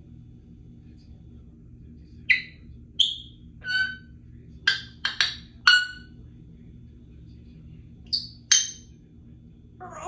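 Congo African grey parrot making short, sharp clicking and popping calls, about eight in all, in quick groups of two or three.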